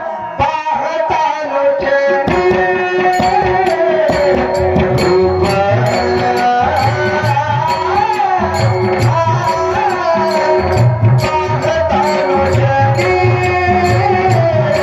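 Marathi devotional song (Warkari kirtan) sung by a solo voice with a melody that glides and ornaments, over a steady beat from a hand drum such as tabla or pakhawaj.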